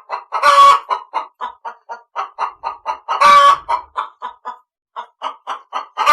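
Hen clucking: a rapid run of short clucks, about four or five a second, broken twice by a louder, longer squawking call.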